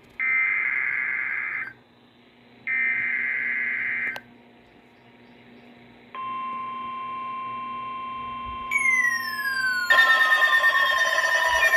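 NOAA Weather Radio SAME header data bursts: buzzing digital two-tone squawks, the second and third of the set of three, each about a second and a half long with a short gap between them. They mark the start of a new alert, here a severe thunderstorm warning. About two seconds after the last burst, the steady 1050 Hz weather radio warning alarm tone starts. Near the end another alarm joins it with falling sweeps and a loud pulsing tone.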